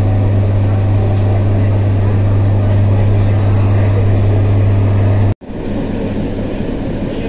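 ED9M electric multiple unit running, heard from aboard: a loud steady low hum over the rumble of the moving train. About five seconds in, the sound cuts out abruptly for an instant, then the rumble resumes with the hum much weaker.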